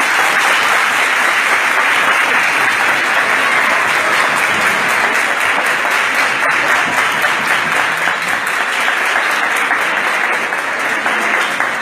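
A crowd of students clapping hard and continuously in a dense, loud din, as a noise-making protest against what they call a rigged election.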